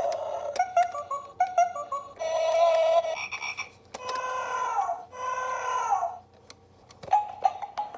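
Battery-powered baby toy playing electronic sounds: a quick run of short beeping notes, then a held buzzy tone and two longer sounds that each slide down in pitch at the end, with sharp clicks in between.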